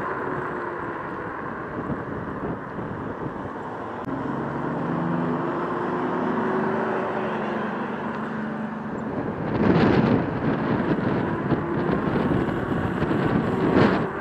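Road noise of an electric scooter ride with traffic around, with a low droning hum for a few seconds in the middle. From about nine and a half seconds in, wind buffets the microphone in loud gusts as the scooter picks up speed.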